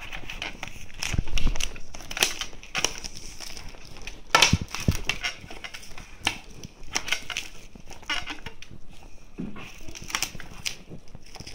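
Plastic shrink-wrap on a Blu-ray case being cut open and pulled, crinkling with irregular sharp crackles and snaps, the loudest about four and a half seconds in.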